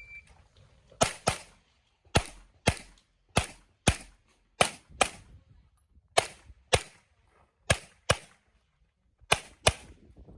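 A shot timer beeps once right at the start. Then a handgun fires fourteen shots in seven quick pairs, the two shots of each pair a fraction of a second apart and the pairs about a second apart: two shots per target, as in a practical shooting stage.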